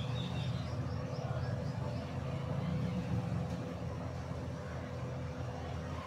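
Mother cat purring while nursing her kittens: a steady low rumble with a fine rapid flutter that swells and eases gently. A faint run of quick high chirps fades out in the first second or so.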